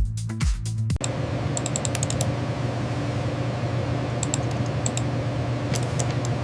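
Electronic dance music with a heavy beat cuts off about a second in. A steady low hum follows, with short flurries of computer-keyboard typing clicks.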